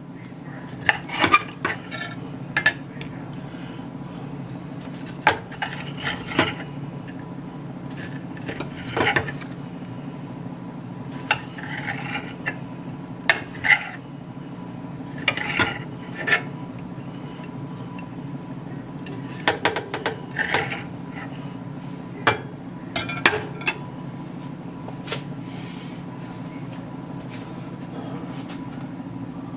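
Chef's knife cutting raw chicken breast into chunks on a plate: irregular clicks and clacks of the blade striking the plate, in clusters a second or two apart, over a steady low hum. The clicks stop shortly before the end.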